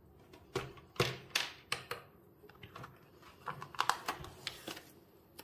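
Hard plastic clicks of a countertop vacuum sealer's lid being unlatched and opened, four sharp clicks in the first two seconds. They are followed by lighter crinkling and clicking as the sealed plastic vacuum bag is pulled out and handled.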